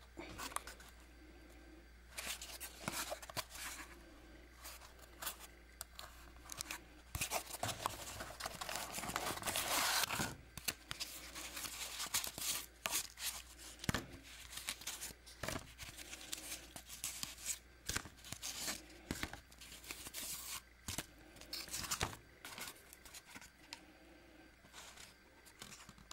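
Corrugated cardboard target layers being handled and pulled apart by hand: irregular rustling, scraping and clicking of the sheets, with a longer, louder stretch of tearing about eight to ten seconds in.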